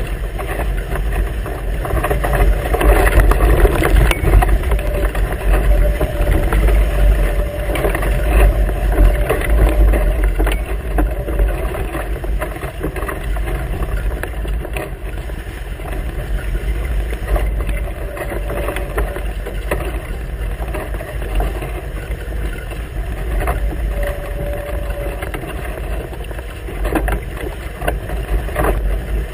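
Rush and splash of water along the hulls of a Hobie Tiger catamaran sailing at speed, with wind buffeting the camera microphone as a heavy low rumble. The noise swells and eases, and a faint hum comes and goes.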